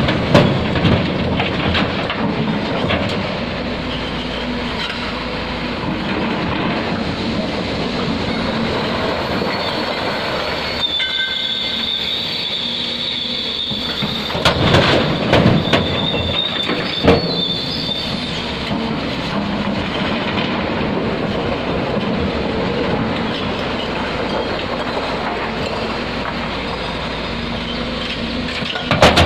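Hyundai HX360L mining excavator working, its diesel engine and hydraulics running steadily with metallic clanking. Midway a high squeal sets in for several seconds, along with a run of loud knocks as rock is dropped into the steel bed of a dump truck.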